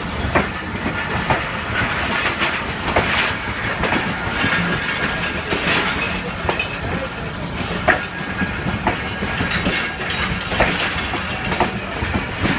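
Passenger train rolling through the station, its wheels clicking irregularly over the rail joints beneath a steady rumble.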